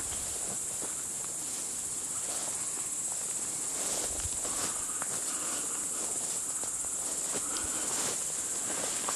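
Steady high-pitched chirring of insects in summer vegetation, with the rustle and footsteps of someone wading through tall undergrowth.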